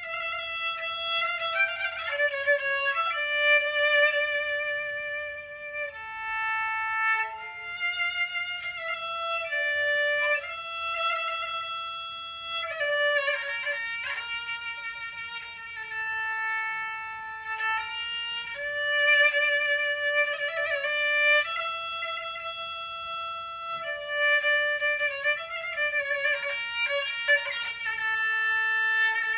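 Violin playing a single melody line: long held notes with vibrato, broken by quick ornamental runs a few seconds in, around the middle and near the end.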